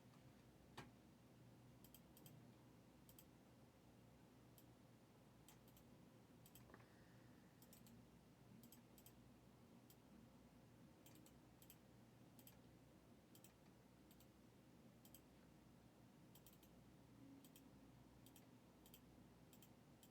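Near silence, broken by faint, scattered clicks about one every half second to a second.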